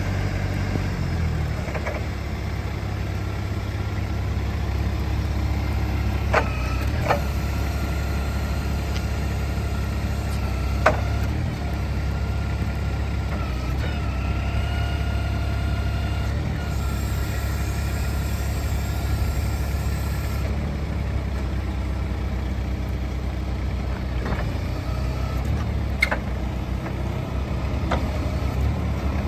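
Terberg TKL-M truck-mounted forklift's engine running steadily as the machine is driven, its pitch stepping up about a second in. A thin whine comes in for several seconds mid-way, and there are a handful of sharp clicks and knocks.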